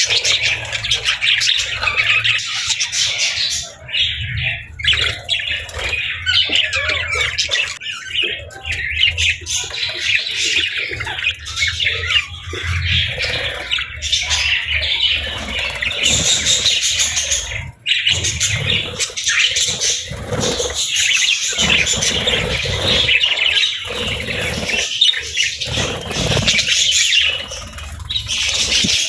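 A flock of budgerigars chirping and chattering nonstop, many short calls overlapping, with a low rumble beneath.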